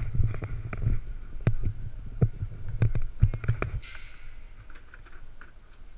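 Irregular knocks and clicks of ski-jumping skis and ski boots being handled close to a helmet-mounted camera, over a low rumble. There is a brief hiss about four seconds in, then the knocking thins out.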